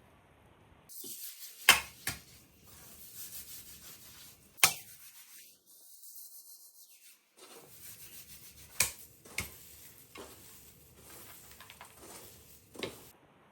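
Rubbing and scraping from hand work, broken by several sharp knocks, the loudest about two seconds in and again near five and nine seconds.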